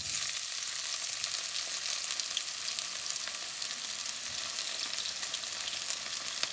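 Diced onions hitting hot oil in a wok and frying, a steady sizzle with fine crackling that starts suddenly as they go in.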